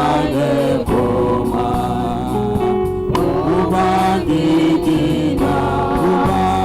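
Gospel praise song sung in Hausa, voices singing a gliding melody over steady instrumental accompaniment with held low notes.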